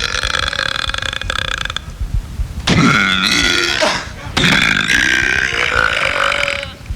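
A person burping loudly, three long drawn-out burps in a row: one running on until about two seconds in, a shorter one after a brief pause, then a long one of about two seconds.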